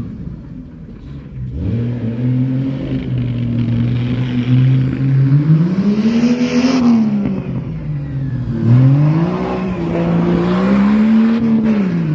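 Off-road 4x4's engine running and revving under a driver's throttle: the pitch climbs about a second and a half in, rises and falls around the middle, dips sharply, then climbs and eases again near the end.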